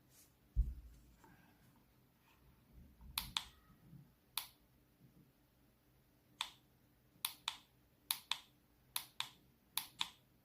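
Plastic buttons on a digital projection alarm clock clicking as they are pressed, mostly in quick pairs about once a second, after a low thump of the clock being handled near the start.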